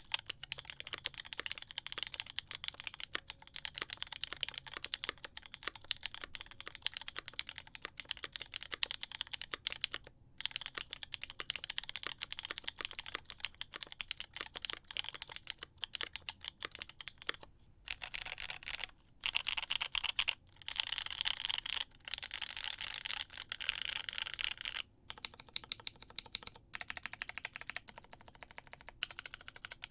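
Steady fast typing on an LW-75 gasket-mount mechanical keyboard with lubed and filmed Cotton Candy switches in an aluminium plate and GMK keycaps, a continuous patter of key clicks. There are a few brief pauses, and a louder, denser stretch in the second half.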